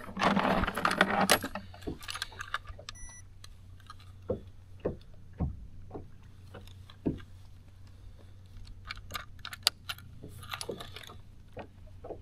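Handling noise from fishing gear on a bass boat deck as a fish scale is taken out and its lip clip fastened on a bass: a burst of rustling and rattling at the start, then scattered clicks and clinks, with a short high beep about three seconds in.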